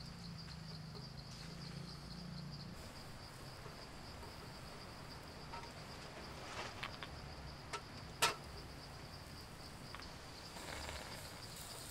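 Insects trilling steadily at a high pitch, with a few light clicks of snail shells being set down on a wire grill; the sharpest click comes about eight seconds in.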